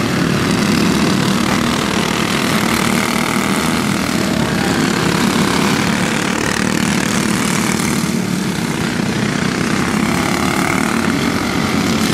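Racing kart engines buzzing at speed as two karts run close together, the pitch sweeping up and down as they pass by and change speed through the corners.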